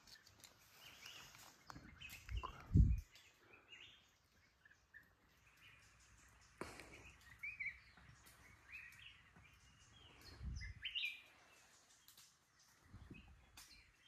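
Small birds chirping in short scattered calls. A few low muffled thumps cut in, the loudest about three seconds in and another about ten seconds in.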